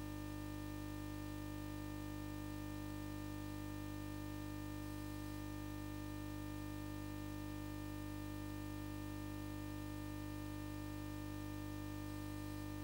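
Steady electrical hum with several overtones, unchanging in pitch and level, with no other sound.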